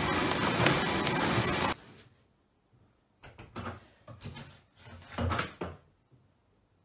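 Loud steady noise from a poly-wrapping mailing line that cuts off suddenly a couple of seconds in. After a short quiet, a front door's letterbox clatters in a run of rattles and knocks as post is pushed through, the loudest a dull thud near the end.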